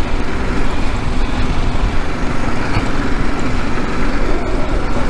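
BMW G 310 GS single-cylinder engine running at a steady pace on a dirt track, under a steady rush of wind and tyre noise.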